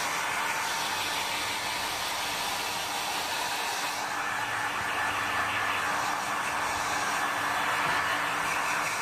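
Handheld blow dryer running steadily, blowing air over a puppy's coat: an even rushing of air with a faint steady motor hum beneath it.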